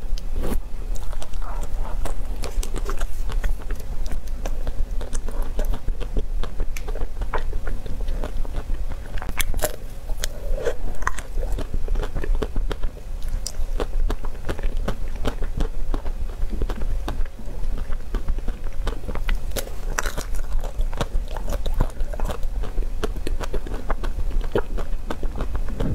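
Close-miked biting and chewing of a chocolate-coated ice cream bar with nuts: the hard chocolate shell cracking and crunching in many quick, irregular crackles, over a steady low hum.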